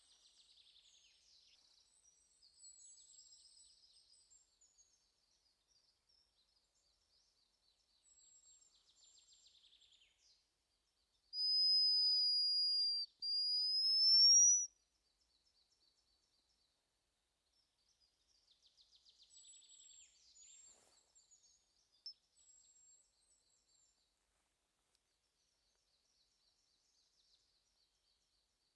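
Hazel grouse whistle about 11 seconds in: a long, high, thin whistle that falls slightly, then a shorter one that rises. Faint high trills of small birds come and go around it.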